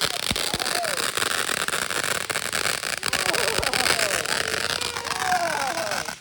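Ground fountain firework spraying with a steady loud hiss and fine crackling throughout, cutting off suddenly at the end.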